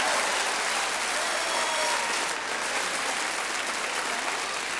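Audience applauding steadily, with a faint voice heard through the clapping.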